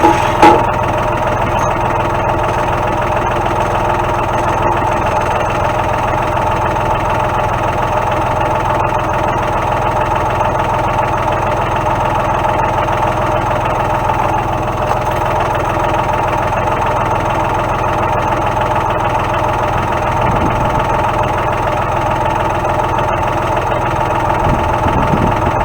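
Tractor engine running steadily at idle, with one sharp knock about half a second in.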